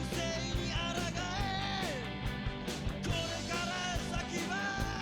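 Background rock music with a sung vocal line over a steady drum beat.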